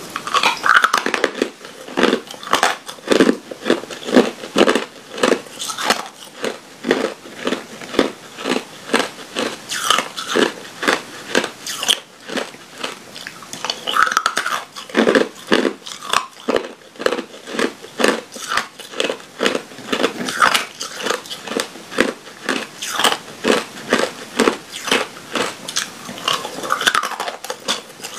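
Clear ice cubes being bitten and chewed, close to a clip-on microphone: a continuous run of sharp, brittle crunches, several a second.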